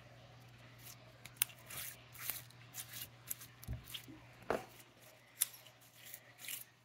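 Peachybbies Fairy Water slime being squished and stretched by hand, giving irregular short clicks and crackly pops. The slime is still somewhat sticky.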